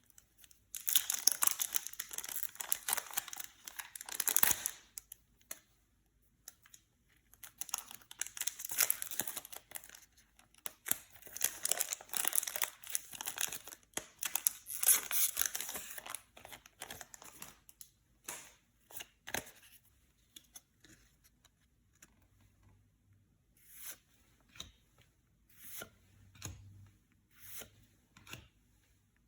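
Foil Yu-Gi-Oh booster pack wrappers being torn open and crinkled in two long stretches, followed by scattered short crinkles and clicks.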